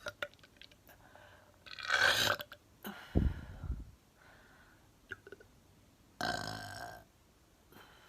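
A woman burping several times: two loud burps close together about two and three seconds in, the second deep and low, and another about six seconds in.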